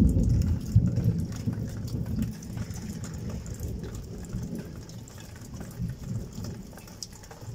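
Rolling thunder, a deep rumble that is loudest at the start and fades away over several seconds, with rain falling throughout.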